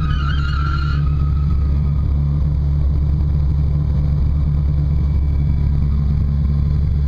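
Engine of a tuned 500-horsepower Mitsubishi Lancer Evolution running steadily at idle, heard from inside the cabin. A short high chirp sounds in the first second.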